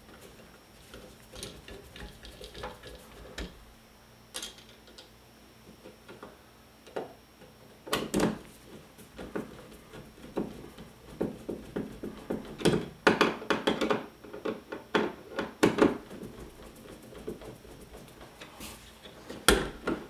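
Screwdriver driving the mounting screws of a new light switch into its wall box: scattered clicks, scrapes and small metal taps, sparse at first and busiest from about the middle on.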